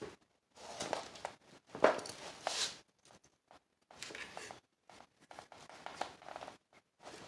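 Intermittent scuffing and scraping as a straight edge and a drywall sheet are handled and shifted into position, in short bursts of a second or less with a few light clicks.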